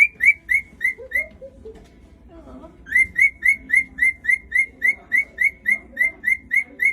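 Cockatiel singing: a run of short, upswept whistle notes repeated about four times a second, breaking off about a second in and starting again about three seconds in. Whistling song like this is a sign the bird feels relatively safe and relaxed.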